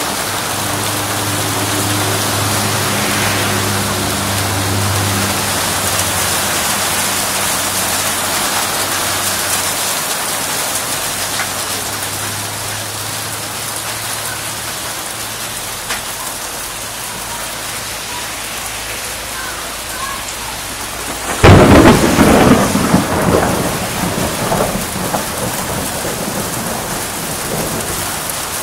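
Hail and rain pelting down in a steady hiss. About three-quarters of the way through, a sudden loud thunderclap cracks and rumbles away over a few seconds.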